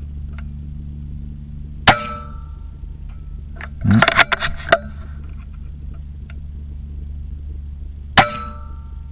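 RAW HM1000X PCP air rifle fired twice, about six seconds apart. Each shot is a sharp crack followed by a brief metallic ring. Between the shots, about four seconds in, comes a short cluster of clicks and knocks.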